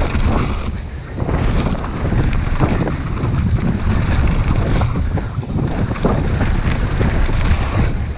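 Wind buffeting the action-camera microphone over the rumble of a downhill mountain bike rolling fast over a snowy trail, with short knocks and rattles from the bike over bumps.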